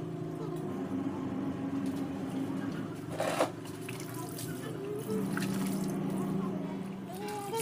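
Water splashing and dripping as clothes are rinsed by hand in a plastic basin, with a louder splash about three seconds in. Background music with held notes plays underneath.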